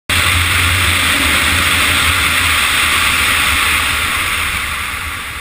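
Loud wind rushing over the microphone of a camera on a moving motorcycle, with riding noise underneath. It eases off a little near the end.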